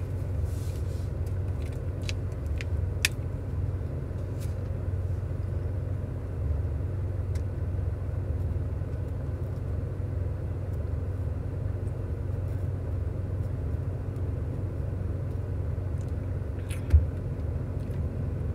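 Car engine idling, a steady low hum heard from inside the cabin, with a few small clicks early and a single short knock near the end.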